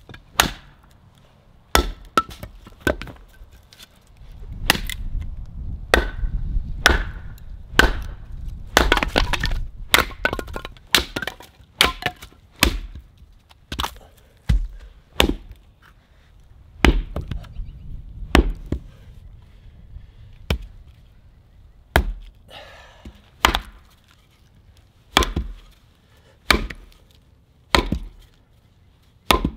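A TOPS CUMA Kage short sword is batoned through firewood with a wooden stick to split it: a long run of sharp wooden knocks, roughly one a second, coming in irregular bursts.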